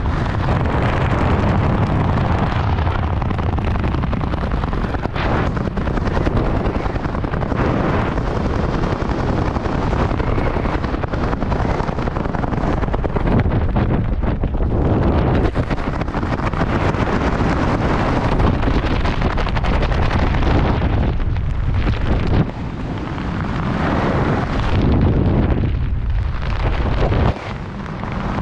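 Wind buffeting the camera's microphone during parachute canopy flight: a loud, steady rushing that swells and fades, dropping away briefly twice near the end.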